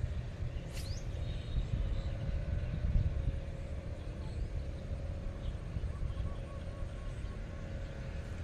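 Wind rumbling on the microphone in open country, with a faint steady hum, a quick falling bird chirp about a second in and a short run of faint bird notes near the end.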